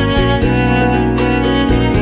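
Instrumental background music with sustained melody notes over a moving bass line and a steady beat.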